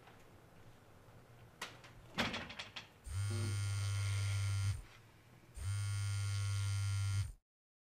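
A mobile phone vibrating on a tabletop: two steady buzzes, each about one and a half seconds long, the first starting about three seconds in, after a few faint knocks.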